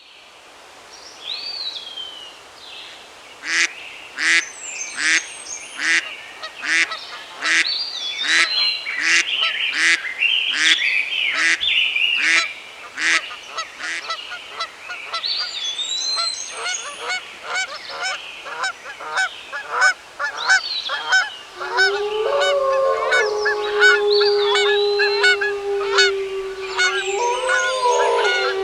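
Birds calling over one another, with a run of loud calls repeated about once a second. About three quarters of the way in, a long, held lower call starts and goes on under them.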